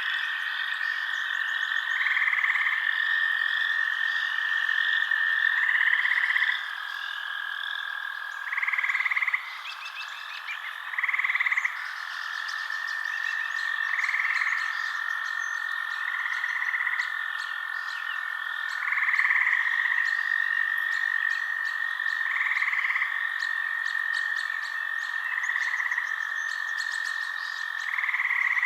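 Night chorus of frogs: a steady high trilling, with louder calls repeating every two to three seconds and faint clicking calls above them.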